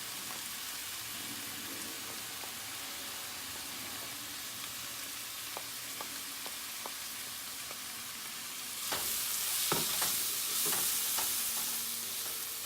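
Onion, tomato and spice powders sizzling in hot oil in a pan while being stirred, with a few light clicks of the spatula against the pan. The sizzle gets louder about nine seconds in.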